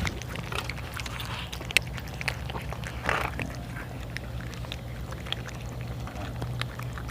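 Kittens eating, with scattered small clicks of chewing and lapping, over a steady low hum.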